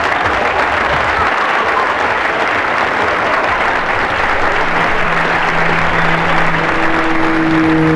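Steady applause from a crowd clapping. About halfway through, held music notes come in beneath it and change pitch a few times.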